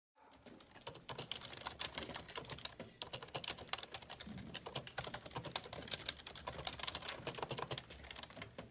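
Many computer keyboards being typed on at once, a dense, continuous clatter of key clicks that starts abruptly out of silence.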